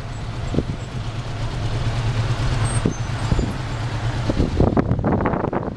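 A car in motion: steady engine and road noise, with rough buffeting and thumps growing louder in the last second or so.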